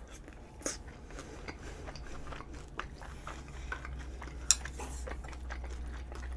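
Close-miked chewing of a mouthful of curry rice, with small wet mouth sounds and light clicks of a spoon against the dish; one sharper click about four and a half seconds in.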